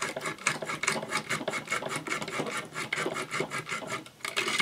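Sandpaper scraping against the brass contact of a toy's switch as the switch lever is worked back and forth over it, in quick repeated short strokes: the switch contact is being sanded clean.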